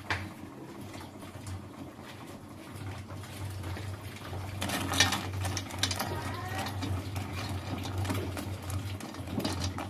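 Steady low hum under a metal spoon stirring white crackers soaking in water in a stainless steel pot, with scrapes and clinks against the pot about halfway through and near the end.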